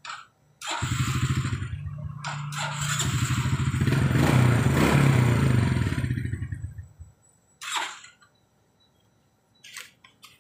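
Suzuki Smash single-cylinder four-stroke engine starts, runs with a steady pulsing beat and is revved up in the middle, then cuts off about seven seconds in; a couple of brief knocks follow.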